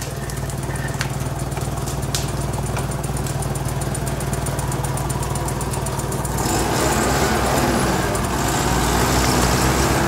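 UAZ-469 off-roader's engine running at low revs as it crawls over rough ground, getting louder about six and a half seconds in as it takes more throttle.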